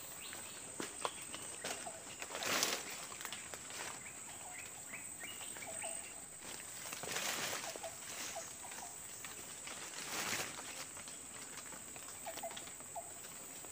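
Quiet forest ambience with scattered faint short chirps and a few brief rustling swells, about two and a half, seven and ten seconds in.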